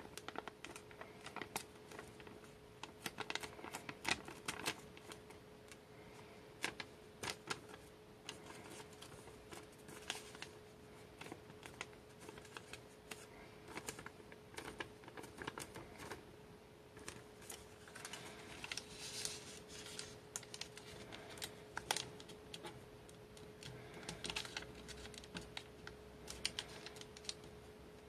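Origami paper being folded and creased by hand: irregular crisp crackles and rustles as the sheet is handled and its folds are pressed flat, over a faint steady hum.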